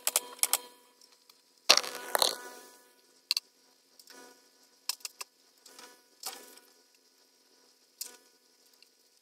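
Pneumatic nail gun firing a quick run of sharp shots into pine tongue-and-groove soffit boards, then a louder scrape and thump about two seconds in and scattered knocks as a board and the stepladder are handled.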